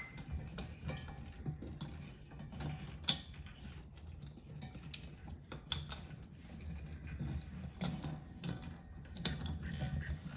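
An old ceiling light fixture being spun by hand off its threaded spindle: irregular small metallic clicks and rattles, with one sharper click about three seconds in.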